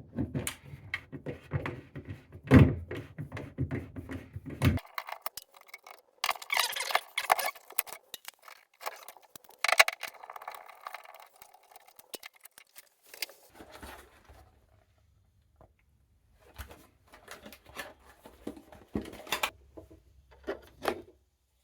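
Handling noise: scattered knocks, clicks and rustling, with a low hum under the first five seconds and again from about thirteen seconds in.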